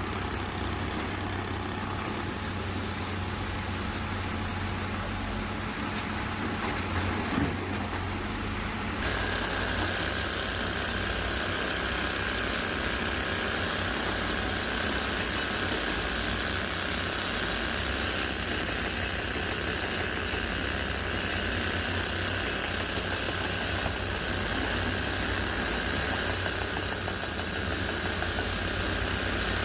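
Heavy diesel engine running steadily with a low drone. About nine seconds in the sound changes abruptly and a steady high whine joins it.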